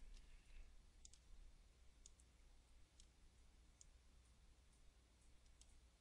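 Near silence with a low hum and a handful of faint computer mouse clicks, roughly one a second, as a Bezier curve is drawn and its nodes are selected and dragged.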